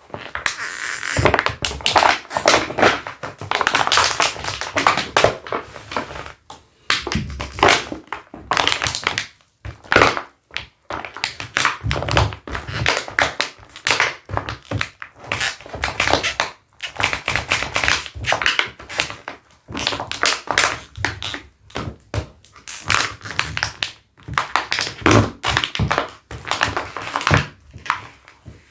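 Leather Dr Martens boots rubbed against each other, giving rapid, irregular squeaks and knocks with short pauses between strokes.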